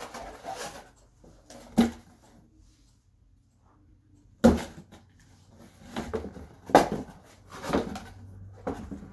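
Sharp knocks of a short knife striking a cardboard box, with cardboard handled between strikes. There is one knock near two seconds in, the loudest about four and a half seconds in, and a quick run of several more after that.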